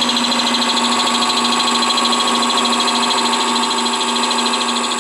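Wood lathe running while a spindle gouge cuts a spinning spalted pecan bottle-stopper blank: a steady hissing cut over an even tone from the lathe.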